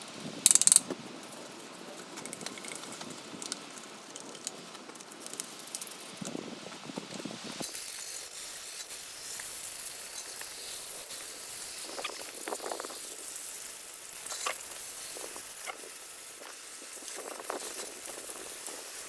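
Water spraying onto a Volkswagen air-cooled engine as it is washed down: a steady hiss with spattering. There is a short loud burst about half a second in.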